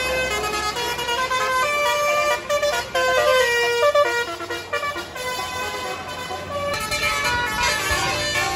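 Bus 'telolet' Basuri multi-tone musical horn playing a melody as a run of stepped notes, over the low rumble of a bus engine.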